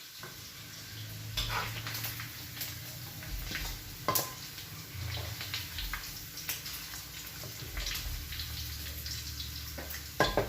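Meat sizzling as it fries in hot oil, with a steady hiss broken by scattered clinks and scrapes of a utensil against the pan.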